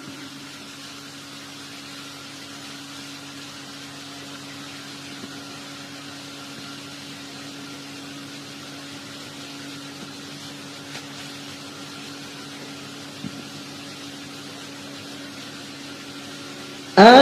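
A steady low hum with a faint hiss, with one small click about thirteen seconds in.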